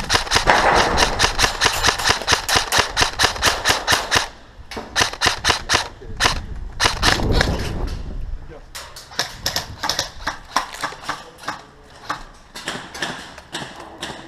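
Airsoft gun firing full-auto bursts: one long burst of about four seconds, then shorter bursts, thinning out to scattered shots near the end.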